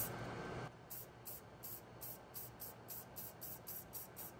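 Aerosol can of copper metallic spray paint spraying with a steady hiss, which cuts off just under a second in. A fainter hiss follows.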